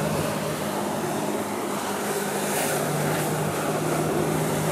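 Steady drone of a boat engine running on the water, over a hiss of wind and water spray.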